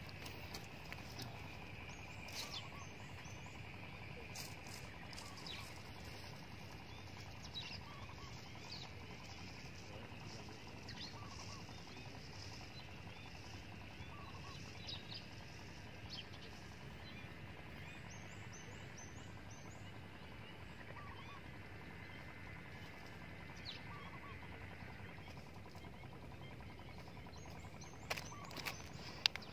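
Quiet open-air ambience: a steady low hiss of background noise with faint, scattered bird chirps, and a few sharp clicks near the end.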